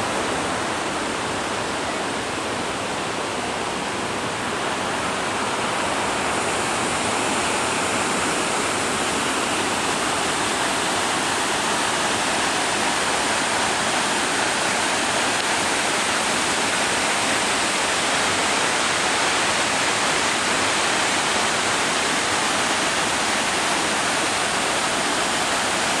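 Waterfall rushing steadily, water falling over rock ledges into a pool, growing slightly louder about six seconds in.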